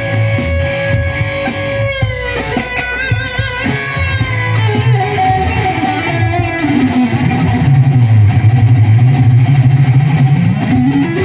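PRS SE CE24 solid-body electric guitar played through an amp: a long sustained note that drops in pitch about two seconds in, then a note with wide vibrato and a falling run. Low notes follow and end in a slide up near the end.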